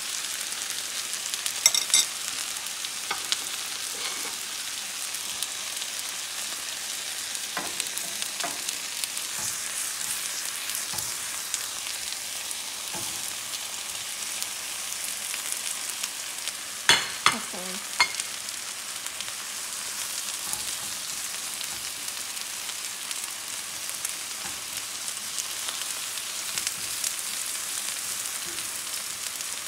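Pork browning in hot oil in a nonstick skillet: a steady sizzle, with stirring as garlic and red onion are added. A few sharp clinks about two seconds in, and a louder cluster around seventeen seconds, are the loudest sounds.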